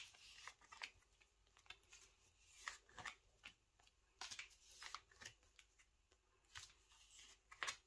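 Faint, irregular rustling and light ticks of sleeved photocards being slid into the plastic pockets of a binder page.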